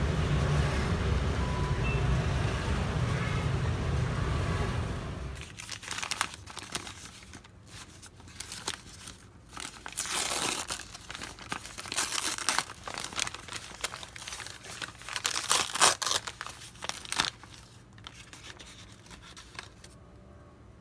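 Steady street and traffic noise, which cuts off after about five seconds. Then a brown kraft-paper bag crinkles and tears in irregular rustles as hands pull it open and unwrap the paper-wrapped wheel pies, loudest in a few sharp tears near the middle.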